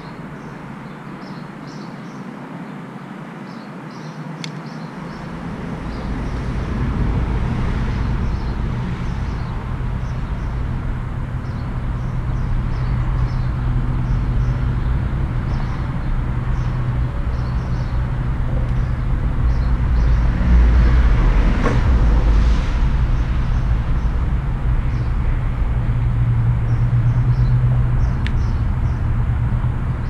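Harley-Davidson V-twin engine starting about five seconds in, then running at a steady idle with a deep, even rumble that swells briefly past the middle.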